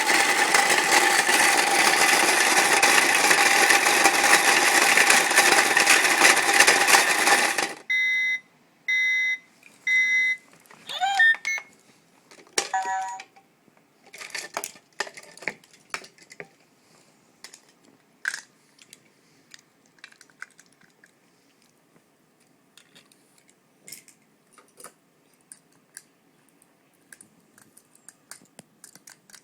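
Toy washing machine running with a loud, even noise for about eight seconds before cutting off suddenly. Three short beeps follow, then a gliding electronic tone and a brief jingle. Light clicks and knocks of handled plastic fill the rest.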